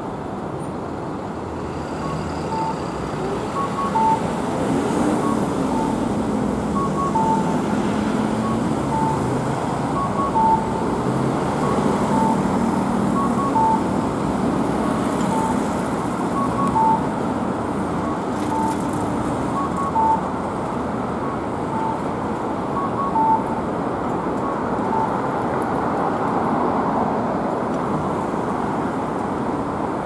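Street traffic at a city intersection: cars idling and pulling away, with a faint two-note electronic beep repeating about once a second.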